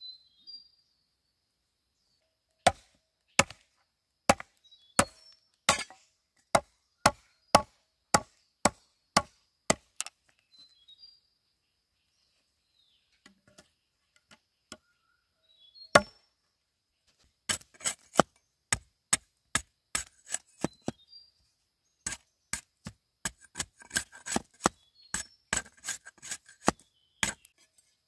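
Repeated chopping strikes of a blade into bamboo, sharp single blows about one and a half a second. There is a pause with a single blow about halfway through, then a faster run of chops.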